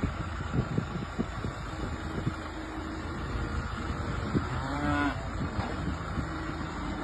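A cow mooing, with one clear call about five seconds in and lower, held calls around it, over the steady running of an engine.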